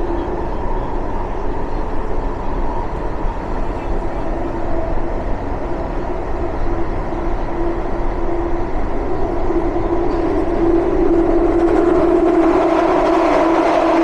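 London Underground Jubilee line train (1996 Tube Stock) running, heard from inside the carriage: a steady rumble with a level whine that grows louder about ten seconds in.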